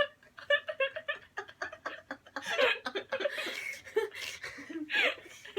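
Women laughing in quick repeated bursts of giggling, with a few soft words, just after one of them has sneezed.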